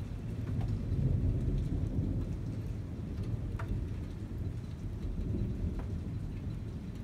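Rolling thunder rumbling low, loudest about a second in and slowly dying away, over rain with a few scattered drops ticking.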